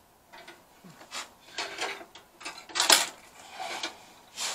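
Metal clinking and scraping as a gas water heater's burner assembly, with its copper thermocouple and gas tubes, is handled. It comes as a string of short rattles, the loudest clatter about three seconds in.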